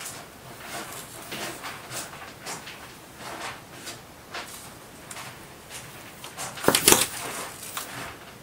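A cat scuffling and scratching at a carpeted cat-tree platform, with light scattered clicks and rustles. About seven seconds in comes a short, loud cluster of knocks and scrabbling as the cat drops down through a mesh net onto the base.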